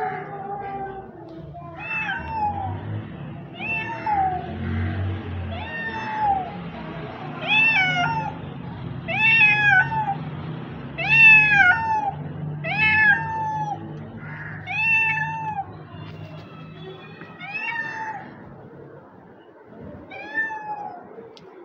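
Orange tabby cat meowing again and again, about a dozen arched meows that each rise and fall, one every couple of seconds, with the last few softer. The cat is asking for food.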